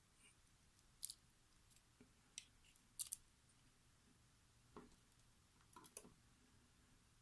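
Faint, scattered small clicks of lock pins and parts being handled while a pin-tumbler lock is taken apart, about half a dozen light ticks with near silence between them.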